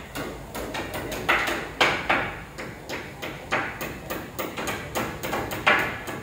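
Plasterers' hand tools, a trowel and a wooden float, scraping and tapping against fresh render on a concrete wall: a run of irregular sharp strokes, about two a second, each with a short scratchy tail.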